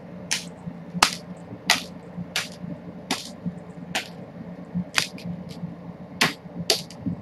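Cat wand toy swung on its cord: short swishes through the air and the feather lure slapping the hardwood floor, about one or two a second, with one heavier thump about a second in, over a steady low hum.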